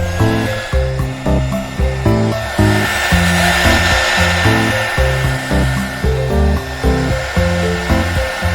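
Background music with a steady beat. Over it, a small motorised tool or blower runs for most of the time with a steady high whine and hiss, growing louder in the middle and fading near the end.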